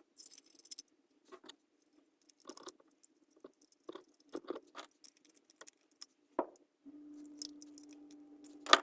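Scattered light clicks and scrapes of metal parts being handled on a furnace burner assembly, with a sharper click near the end. A faint steady hum comes in about seven seconds in.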